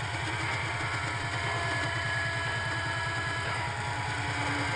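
Continuous factory machinery din: a rapid, even low pulsing under several steady high whines and a haze of noise from running metalworking machines.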